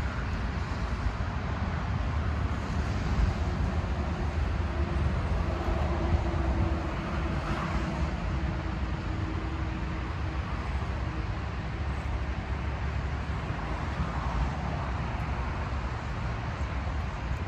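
Steady low rumble of distant traffic. A faint steady hum joins in for several seconds in the middle.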